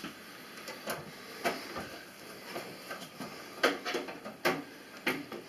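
Irregular small clicks and taps of a screwdriver and screw against a metal computer case as a motherboard mounting screw is driven in, a few sharper knocks about two-thirds of the way through.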